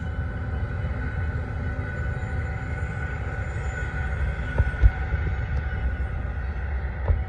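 Two GE ES44AC (GEVO) diesel-electric freight locomotives running past with a deep engine rumble and a steady whine, with a couple of sharp knocks about two-thirds of the way through.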